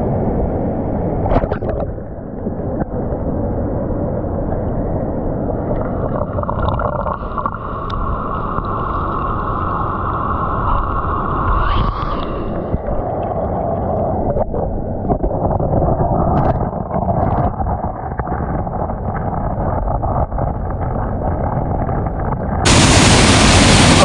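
Muffled underwater rush and gurgle of a waterfall pool, picked up by a camera held under the water over the pebble bed, with a few small clicks. Near the end it cuts to the waterfall heard in the open air: a much louder, brighter rush of falling water.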